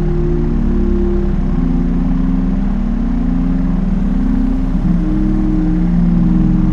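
Steady drone of a Cessna light aircraft's engine and propeller heard in cabin, with an even low throb.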